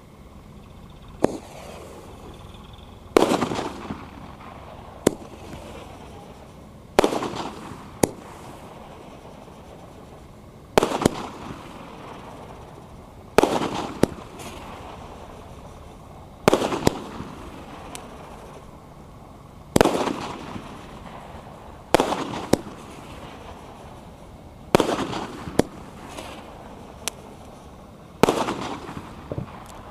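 Ajanta Mega Star 12-shot sky shot, a multi-shot aerial firework cake, firing its shots one after another roughly every three seconds. Each shot is a loud bang that trails off, and several are followed a second or so later by a sharper crack.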